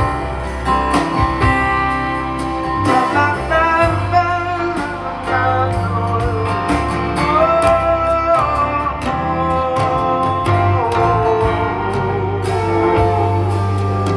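Live band playing a slow instrumental passage, with acoustic guitar to the fore and a sustained, wavering melody line above it.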